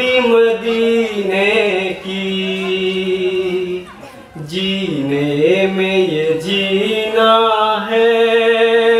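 Male voice singing an Islamic naat unaccompanied, holding long steady notes with slow melodic turns, with a short break for breath about four seconds in before the next phrase.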